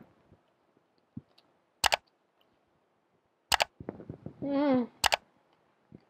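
Three sharp mouse-click sound effects, each a quick double click, about two seconds, three and a half seconds and five seconds in. Just before the last one there is a short hummed "mmm" of someone tasting food.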